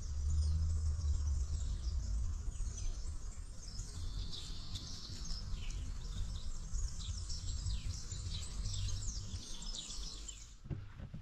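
Small birds chirping and singing in many short, quick notes, over a low rumble.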